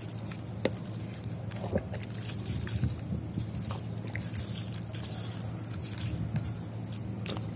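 Apple cider vinegar pouring from a bottle in a thin stream into a plastic tub, trickling and splashing onto a steel knife blade lying in the liquid, with many small irregular splashes.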